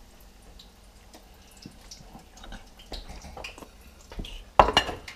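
Kitchen handling noises: light taps, clicks and rustles of trout being turned in a glass bowl of flour. About four and a half seconds in, a dish knocks down onto the counter, the loudest sound.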